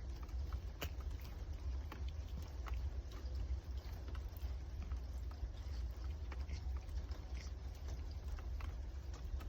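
A cat eating: irregular small clicks and ticks of chewing, over a steady low hum.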